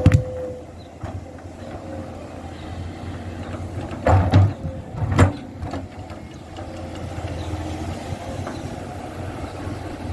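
Hyundai hydraulic excavator's diesel engine running steadily, with loud knocks at the start and again about four and five seconds in as the machine works among rocks.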